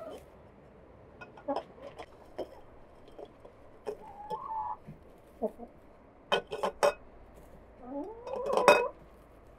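Hen's eggs clinking against a ceramic bowl and each other as they are set into it one by one, a cluster of three clicks past the middle and the loudest clink near the end, with light rustling of wood shavings. A chicken calls briefly twice.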